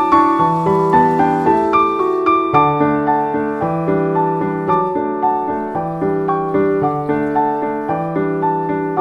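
Background piano music: a calm melody over a steady accompaniment, with notes struck at an even pace.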